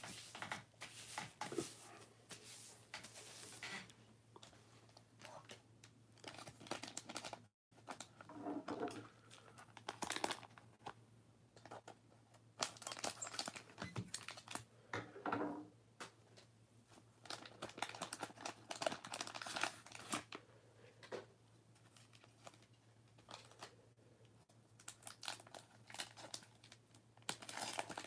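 Plastic and foil trading-card pack wrappers crinkling and tearing open in gloved hands, in irregular spells of crackle with short pauses.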